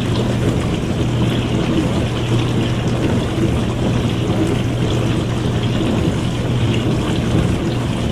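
Dishwasher running: a steady low hum from its pump motor under a constant rush of water.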